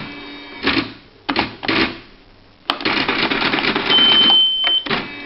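Quen-Data Executive 80 electronic typewriter at work: a few short mechanical bursts, then a longer stretch of mechanism noise. A high steady electronic beep sounds about four seconds in.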